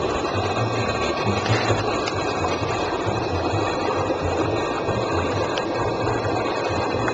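Steady mechanical hum with a dense rushing noise and a low throb that comes and goes every second or so.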